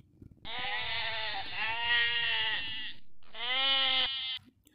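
Goat bleating twice: one long, quavering bleat, then a shorter one.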